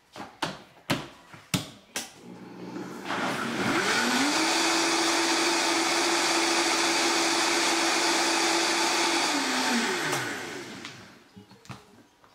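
Countertop blender whipping a liquid mix into foam. A few clicks as the lid goes on, then the motor spins up about three seconds in, runs steadily for about five seconds and winds down to a stop.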